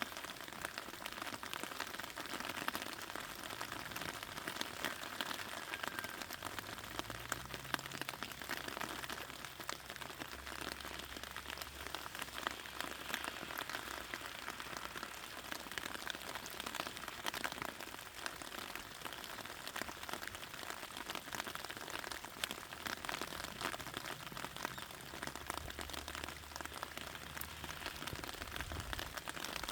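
Steady rain falling on raspberry plants, many drops pattering on the leaves. A faint low hum comes and goes underneath.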